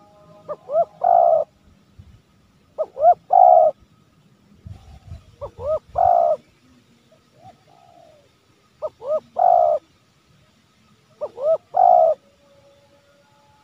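Spotted dove cooing: five repeated phrases, each two short rising notes followed by a longer coo, about every two and a half seconds. It is the 'menekan' call used to lure wild spotted doves.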